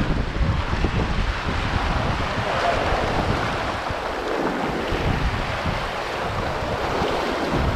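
Wind buffeting the microphone over the rushing hiss of water streaming along a sailing yacht's hull; the water's hiss swells for a few seconds mid-way while the wind rumble eases.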